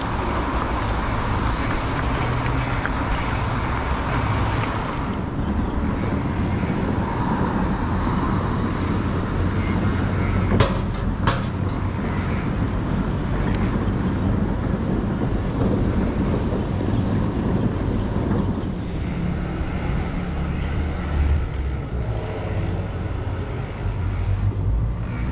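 Steady road traffic noise with a heavy low rumble, with two sharp clicks about ten and eleven seconds in.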